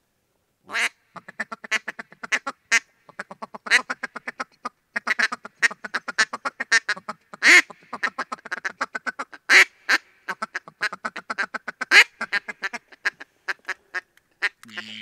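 Rapid mallard-style quacking: a long run of short quacks, several a second, with louder quacks standing out every second or two.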